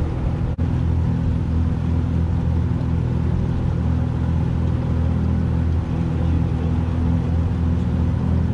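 Boat motor running steadily at an even pitch, with a momentary gap about half a second in.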